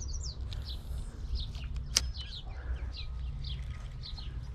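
Small birds chirping over and over in short, high calls, over a steady low rumble. One sharp click sounds about two seconds in.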